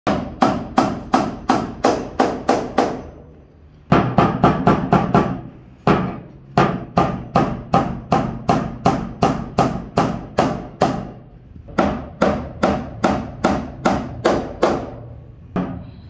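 Claw hammer driving nails into wooden ceiling boards overhead: runs of sharp strikes about three a second, broken by short pauses.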